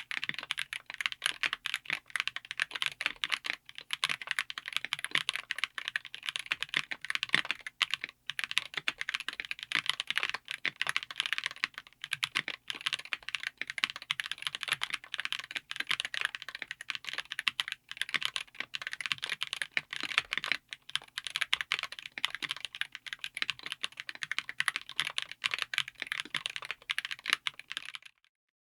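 Fast typing on TTC Elf King HE magnetic linear switches in a keyboard with an aluminium case and FR4 plate: a dense, unbroken stream of keystroke clacks that stops abruptly near the end.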